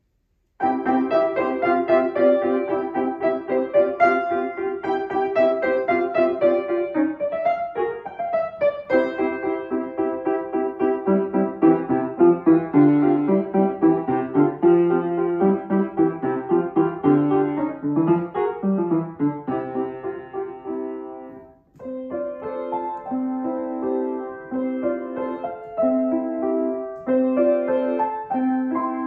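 Solo upright piano playing a piece of many quick notes. It starts about half a second in and pauses briefly about two-thirds of the way through before the playing resumes.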